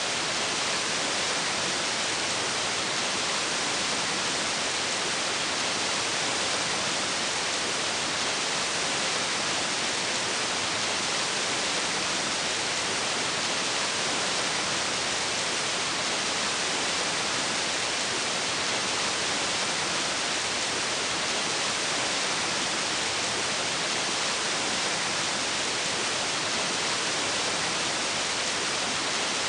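Waterfall: a steady, unbroken rush of falling water, hissy and even, with no change in level.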